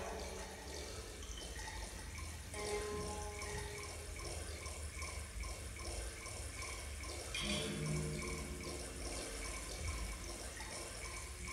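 Ambient soundscape track of steady water-like rushing over a low rumble, with a few short held tones rising out of it, near 3 seconds in and again around 8 seconds in.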